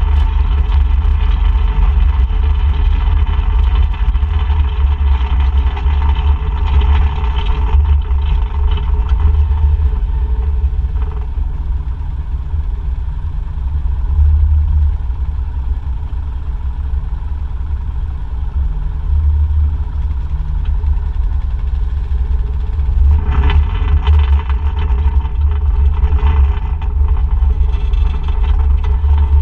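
ATV engine running while being ridden, louder for the first several seconds and again near the end, easing off in between.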